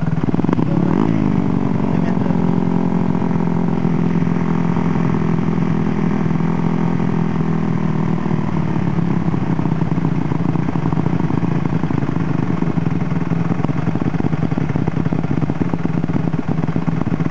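Dirt bike engine running close by: revved briefly about a second in, the pitch falling back to a steady idle. About halfway through, the higher tones fade, leaving a steady low drone.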